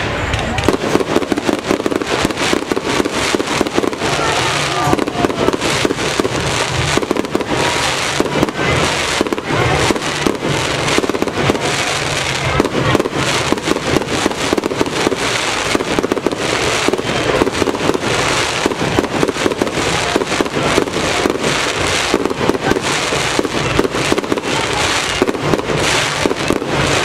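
Aerial fireworks shells bursting into crackling stars: a dense, unbroken run of many rapid small pops.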